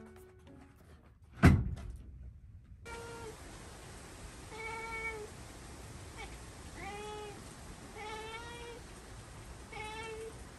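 A cat meowing repeatedly: about six drawn-out meows from about three seconds in, over a steady hiss. A single heavy thump about a second and a half in is the loudest sound.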